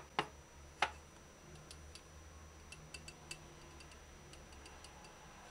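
A metal utensil clicking against a glass jar as a pickled scotch bonnet pepper is fished out: three sharp clicks in the first second, then scattered faint ticks.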